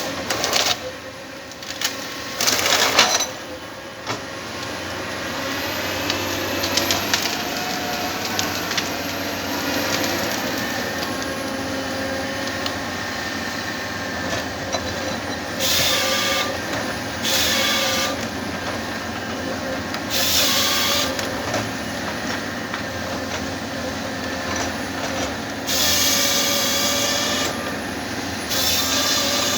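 Komatsu 931 XC forestry harvester at work: its engine and hydraulics running steadily, with several short bursts of harsher noise from the machine and its C144 harvester head.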